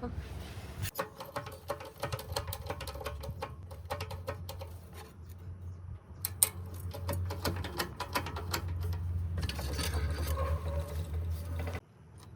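A machine runs with a steady low hum under rapid, irregular crackling and clicking. It starts about a second in and cuts off abruptly near the end.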